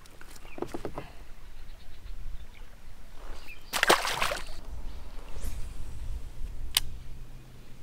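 A small fish tossed back into the river, landing with a splash about four seconds in. A single sharp click follows near the end.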